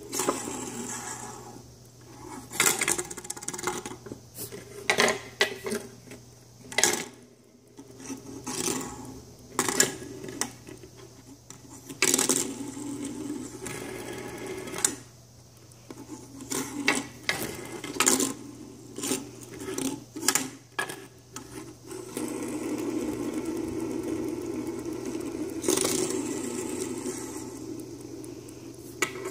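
Fidget spinners whirring on a plastic tabletop, with many sharp clacks as they knock into each other and the table. Near the end a steady whirr holds for several seconds.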